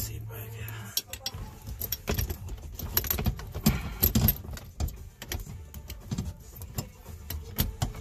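Metal parts of an aluminium aftermarket shifter box and its linkage clinking and rattling as it is handled and fitted, with many sharp clicks and knocks. A low steady hum stops about a second in.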